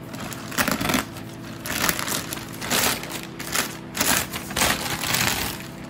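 Plastic courier mailer bag rustling and crinkling in irregular bursts as a cardboard box is pulled out of it.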